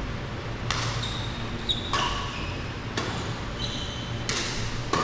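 Badminton rally: rackets strike the shuttlecock five times, about a second apart. Between the hits, shoes squeak briefly on the court, over a steady low hum.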